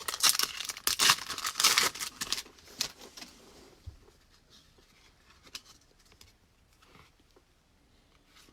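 A trading card pack wrapper tearing and crinkling for about two and a half seconds, then faint rustles and clicks of cards being handled.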